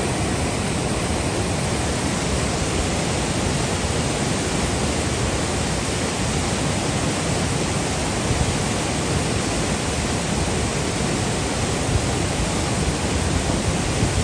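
A waterfall rushing with a loud, steady, unbroken sound of falling water.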